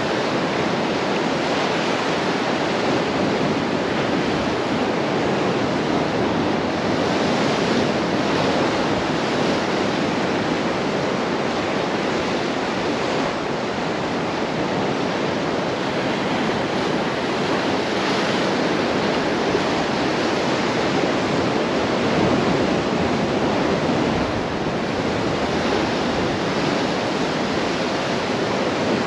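Atlantic surf washing onto the shore: a continuous rush of water that swells and eases slightly in loudness.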